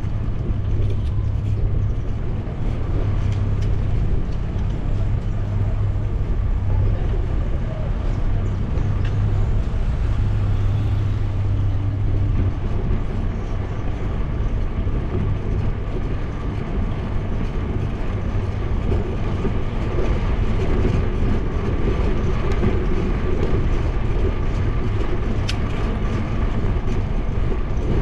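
Steady low rumble of a bike ride recorded on a bike-mounted action camera, with wind on the microphone, climbing a winding paved road.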